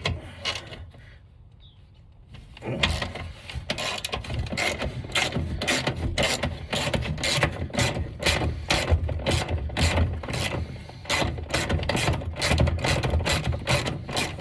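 Socket ratchet clicking rapidly as it is worked back and forth, loosening the 15 mm steering-column mounting nuts. It starts after a quiet couple of seconds and keeps going with only brief pauses.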